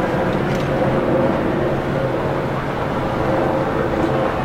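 Red electric locomotive running slowly toward the listener, giving a steady hum with several held tones.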